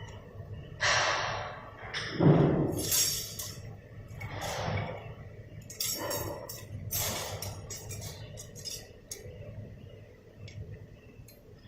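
Automatic fan-grill frame welding machine cycling: a series of short hissing bursts of air, then a run of quick metallic clicks.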